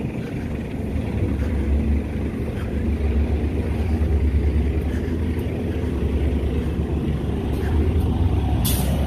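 Steady low rumble of a motor vehicle's engine in street traffic, with a brief hiss near the end.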